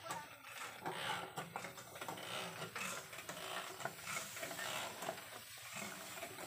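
Hand-pumped knapsack sprayer in use: irregular mechanical clicking from the pump over an even hiss of spray.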